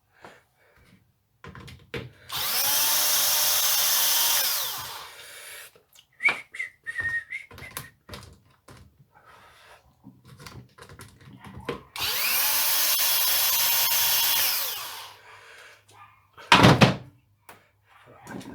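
Cordless drill-driver run twice, each time for about three seconds, its motor whining up to speed and winding down, undoing the screws that hold the strimmer's fuel tank. Small tool clicks come between the runs, and a loud knock comes near the end.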